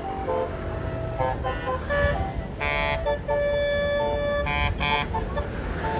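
Basuri telolet multi-note bus horn playing a quick stepped tune of short notes and one longer held note, over the low rumble of the bus's engine running.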